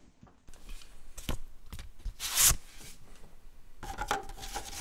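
A 5.25-inch floppy disk being handled and slid into a Teac FD-55GFR drive: light rubbing, scraping and clicks. Near the end the drive latch clicks and a faint steady hum starts.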